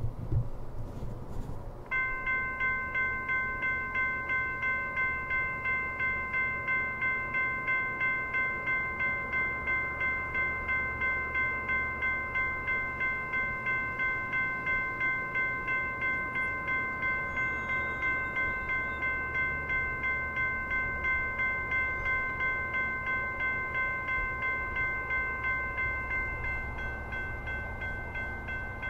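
Railway level-crossing electronic bell (e-bell) starting about two seconds in and ringing steadily at about two strikes a second. It is the crossing warning, activated for an approaching train.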